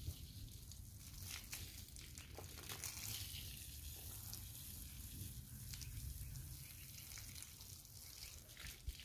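Garden hose spraying water over a horse's coat: a faint, steady hiss of spray.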